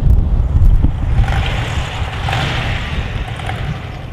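Motorcycle trike towing a small camping trailer driving past, its engine and tyres swelling about a second in and then fading as it pulls away, with wind rumbling on the microphone.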